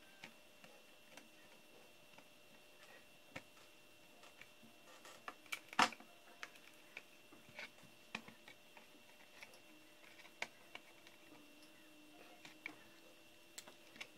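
Scattered light clicks and taps of laptop parts being handled and fitted during reassembly, irregular, with one sharper click about six seconds in. A faint steady high whine runs underneath.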